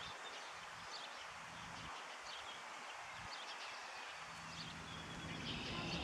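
Outdoor pond ambience: small birds chirping here and there over a steady background hiss. About four seconds in, a low steady hum comes in and grows louder near the end.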